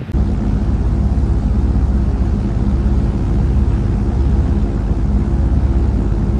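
Twin radial piston engines of a C-47 'Spooky' gunship running in flight, a loud, steady, low propeller drone with a fast pulsing beat. It begins abruptly.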